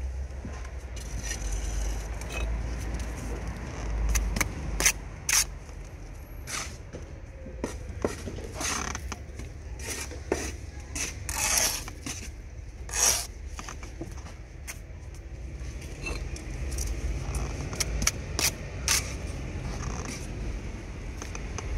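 Steel brick trowel scraping through mortar and knocking as blue engineering bricks are bedded and the squeezed-out mortar is cut off: irregular short scrapes and taps, with a few longer scrapes, over a low steady rumble.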